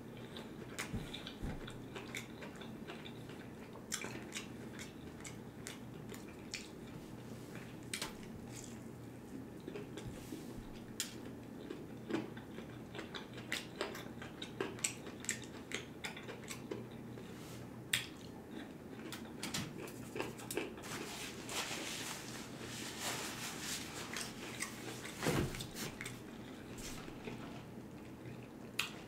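Close-miked chewing and wet mouth clicks of a person eating fried chicken nuggets dipped in sauce, scattered sharp clicks throughout and thicker for a few seconds past the middle. A single dull knock comes near the end.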